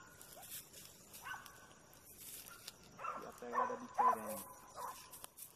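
Hunting dog baying at an armadillo holed up in a burrow: short yelping barks, loudest and most frequent from about three to four and a half seconds in, with brush crackling.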